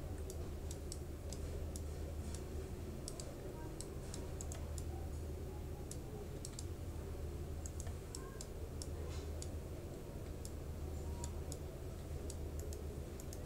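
Irregular, sharp clicking of a computer mouse and keyboard, picked up by a desk microphone, over a steady low hum.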